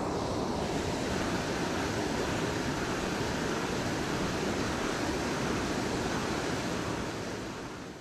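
Steady rushing of a waterfall pouring into a river, fading out near the end.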